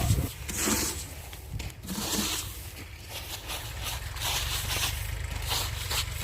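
Freshly threshed rice grain being handled: a series of irregular rustling swishes, a second or two apart, over a steady low rumble.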